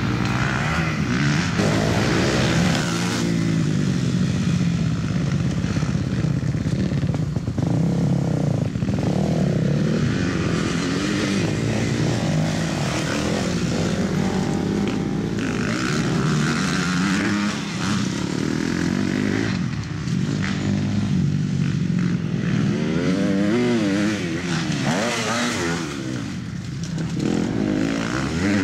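Motocross bike engine revving up and down again and again as the rider accelerates out of turns and shifts through the gears on a dirt track.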